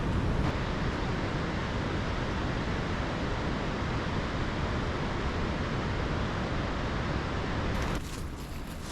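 Waterfall rushing with a steady roar of falling water. About eight seconds in it cuts to quieter outdoor sound with a few sharp crunches like footsteps.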